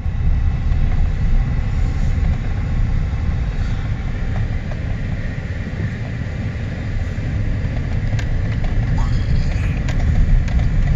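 Steady low rumble of a car being driven, heard from inside the cabin: engine and tyre noise on a snow-covered road.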